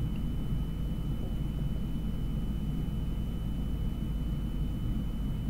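Steady low background rumble with a faint constant high-pitched whine; no bird call or other distinct event.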